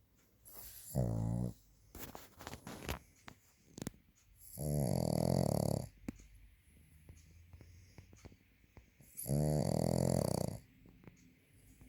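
A sleeping dog snoring: three loud, rasping snores about four seconds apart, the first short and the next two longer, with a few soft clicks between them.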